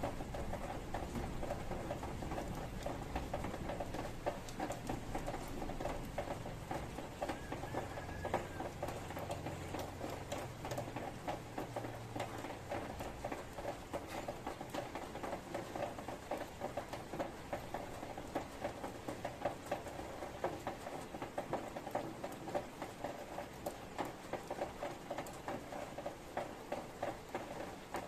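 Steady rain pattering, a dense run of small close drops ticking over a soft hiss. A low rumble under it fades away over the first ten seconds or so.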